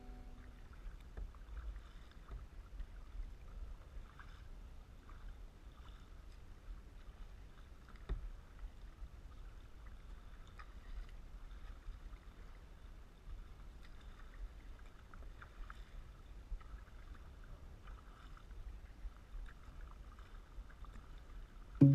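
Kayak paddle strokes splashing in the water and small waves slapping the plastic hull of a sit-on-top kayak, faint and uneven, over a low rumble.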